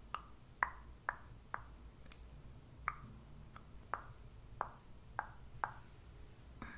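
Light, crisp ASMR clicks, about two a second and somewhat irregular, each with a brief ring, over a faint low room hum.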